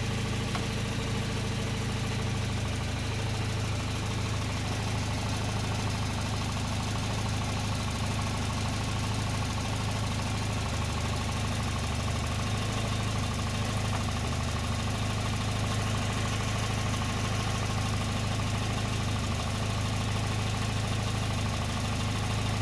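Volvo 940 Turbo's four-cylinder engine idling steadily, its sparks fired by an add-on CDI module triggered by the factory TCI ignition.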